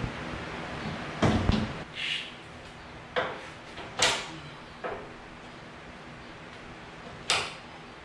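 Homemade metal-framed cab door being fitted onto the front of a Terex PT30 compact track loader: a series of sharp clanks and knocks, the heaviest about a second and a half in, then scattered knocks as the frame is set in place and the cab is climbed into.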